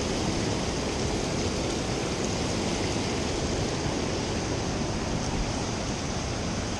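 Steady rush of a waterfall and fast river water: an even, unbroken roar of falling water.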